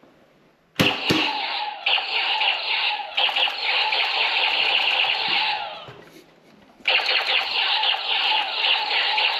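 Motorized toy foam-dart blaster firing in two long bursts: a click as it starts about a second in, then a dense, fast rattle of motor and shots that winds down about six seconds in and starts again a second later.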